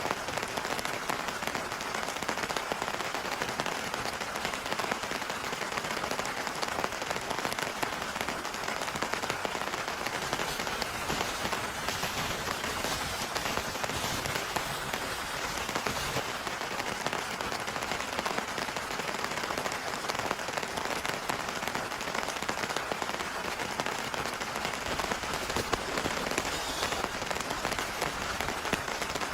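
Heavy rain falling steadily, a dense, even patter of drops that keeps up without let-up.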